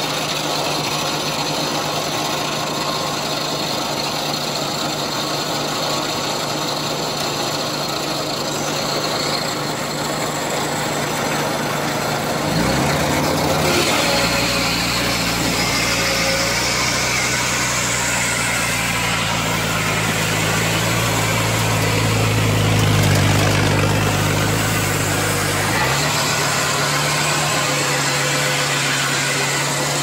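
Engine-driven circular sawmill running steadily. About twelve seconds in, the engine pitch drops and the saw noise grows as the blade cuts through a log. Near the end the pitch rises back as the cut finishes and the blade runs free.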